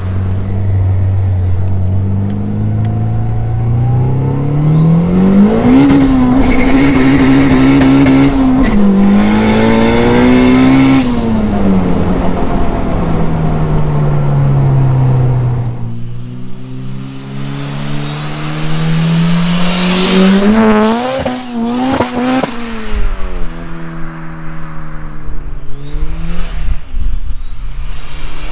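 Turbocharged four-cylinder car engine revving up and falling back several times under hard acceleration, with a high whistle rising as the turbo spools. The revs drop briefly about nine seconds in and again around twenty-two seconds.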